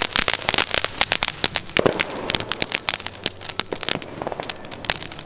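Fireworks crackling: a dense, irregular run of sharp pops and cracks, many each second.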